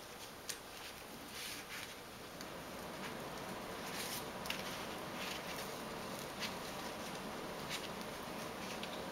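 A folded paper cut-out stuck together with wet tempera paint being slowly peeled open, giving faint scattered sticky ticks and paper rustles.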